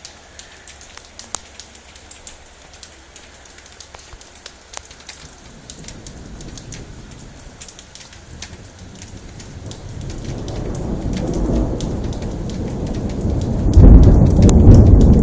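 Thunder following a lightning strike: a low rumble that builds from about six seconds in and breaks loud near the end. Rain falls throughout, with scattered clicks of drops.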